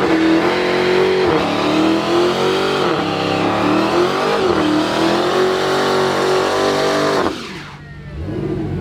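Drag-racing car's engine revving hard at high rpm, with a few brief dips in pitch, then dropping away sharply about seven seconds in.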